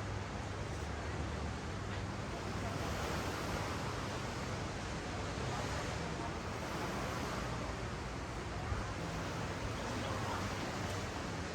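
Ocean waves washing up and down a sandy beach: a steady surf wash that swells and eases every few seconds.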